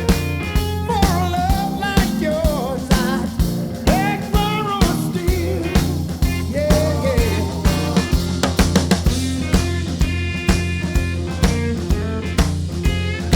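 Rock music with a steady drum beat; sliding melodic notes in the first half.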